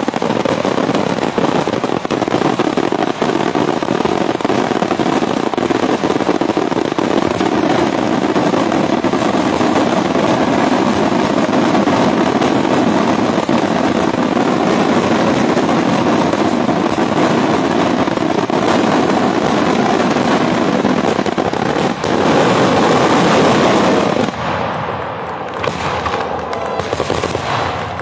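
Daytime fireworks barrage: a dense, unbroken rattle of rapid firecracker reports. It is loudest about four seconds before the end, then thins to scattered bangs as coloured smoke shells burst.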